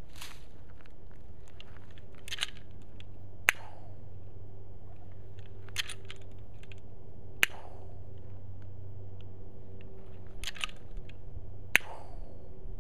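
Denix non-firing replica Volcanic Repeating Pistol being worked and dry-fired three times: a short metallic rattle as the under-frame lever is cycled, then about a second later a single sharp snap of the hammer falling. The snaps come roughly every four seconds and are the loudest sounds.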